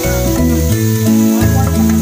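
Background music with held notes, over the sizzle of marinated pork pieces frying in hot oil in a wok.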